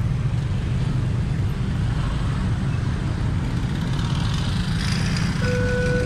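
Dense motorcycle and car traffic crossing a railway level crossing: a steady rumble of many small engines running together. About five and a half seconds in, a steady electronic tone starts: the level crossing's warning alarm beginning to sound for the next train.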